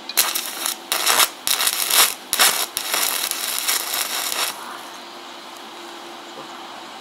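Electric arc welding on steel flat bar: the arc crackles and sizzles in several short bursts, then burns in one longer run that cuts off about four and a half seconds in.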